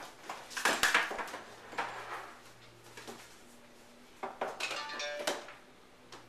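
Rustling of packaging and light clinks and knocks of hard plastic pieces as new iMac accessories are taken out of their box. About four and a half seconds in there is a short pitched sound lasting under a second.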